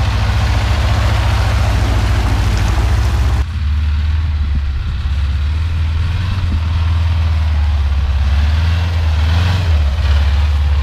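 LuAZ-969's small air-cooled V4 engine running steadily as the 4x4 drives through deep mud, with a hiss over it for the first few seconds. The sound changes abruptly about three and a half seconds in, where the engine note carries on without the hiss.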